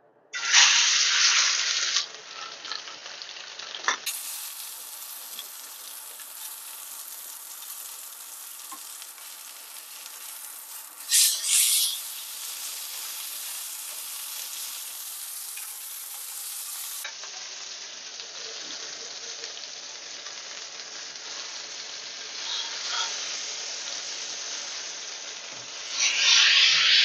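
Flank steak searing in smoking-hot bacon fat in a stainless steel frying pan: a loud sizzle as the meat goes in, settling to a steady sizzle. It flares up louder about eleven seconds in and again near the end, the last time as the steak is lifted with tongs.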